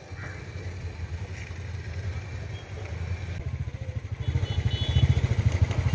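Motorcycle engines running with a fast-pulsing low rumble, getting louder about four seconds in as the bikes come closer.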